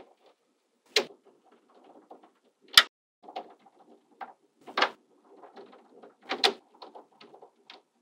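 Small neodymium magnetic balls snapping together and being set in place: sharp, irregular clicks about every half second to second, the loudest about three seconds in, with softer clattering between them.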